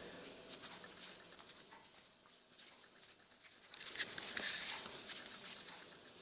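Hands pressing and patting a ball of pizza dough on a floured wooden board: faint soft patting and rustling, a little louder about four seconds in.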